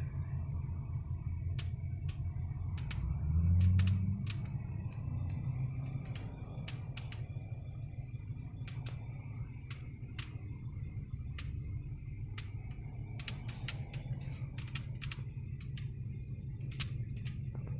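Irregular sharp popping clicks, some single and some in quick clusters, from a 2019 Honda Odyssey minivan, over a steady low rumble, with a brief rising hum about three seconds in. The owner takes the popping for an electrical fault that the dealer has not been able to find.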